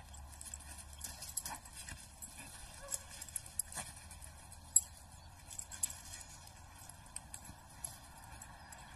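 Faint, scattered clicks and rustles, one sharper tick about five seconds in, over a low steady hum: a cat and a dog scuffling and running over grass strewn with dry leaves.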